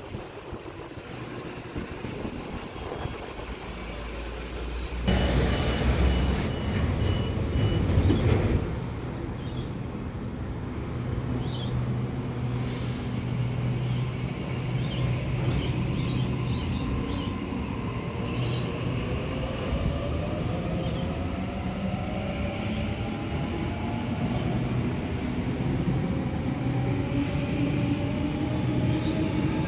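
Sydney Trains double-deck electric train at the platform and pulling away. There is a loud burst of noise lasting about three seconds, a few seconds in; later the motor whine rises slowly in pitch as the train gathers speed.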